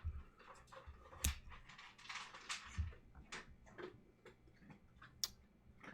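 A dog crunching and chewing its food: faint, irregular crunches and clicks at uneven intervals, with a short rustling stretch about two seconds in.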